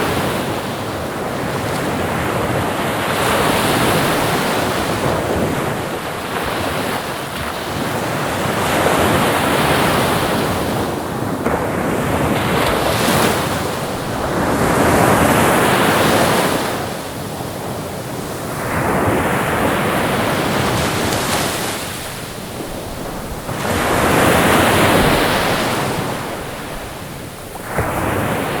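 Ocean waves breaking and washing ashore, the surf swelling and falling back about every four to five seconds.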